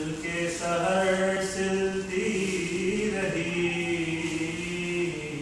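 A man's unaccompanied voice chanting soz, elegiac Urdu verse recited to a melody, in long held notes that step to new pitches a couple of times.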